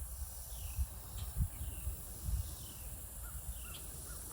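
A small bird calling with short falling notes, repeated about every half second, with a few softer, lower notes near the end. Under it there is low rumble from wind on the microphone and a steady high hiss.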